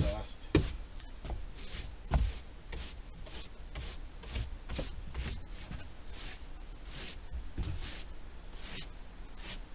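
Broom bristles scraping across a bare boat floor with its carpet removed: quick sweeping strokes, about two or three a second, with a few sharper knocks in the first couple of seconds.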